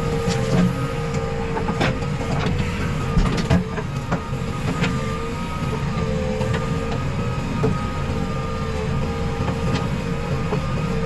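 Heavy diesel earthmoving machinery running steadily, with a constant whine over a low rumble and scattered knocks and clanks, the loudest a few seconds in.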